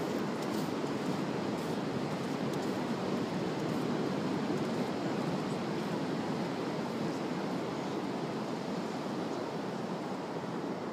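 Ocean surf breaking on the shore, a steady, continuous rushing wash.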